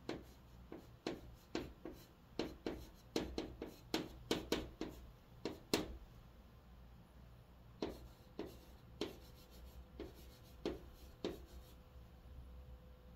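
White chalk writing on a green chalkboard, a quick run of short taps and scratches, one per stroke of the letters. The strokes pause briefly about six seconds in, resume, and stop about two seconds before the end.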